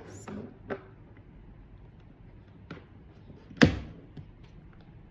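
A few scattered clicks and light knocks, with one much louder knock about three and a half seconds in, from a lamp's plug being handled and pushed into a remote control socket.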